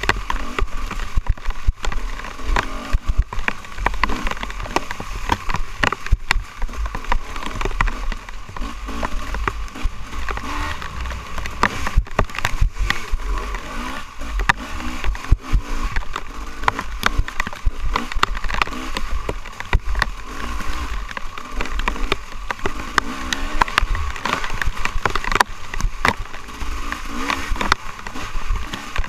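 Off-road dirt bike engine running and revving up and down as it is ridden over a rough, muddy trail, with wind rumbling on the microphone and frequent knocks and clatter from the bumps.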